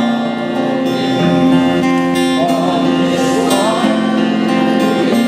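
Acoustic guitar strumming chords while a crowd of untrained voices sings a folk chorus unaccompanied by a lead singer.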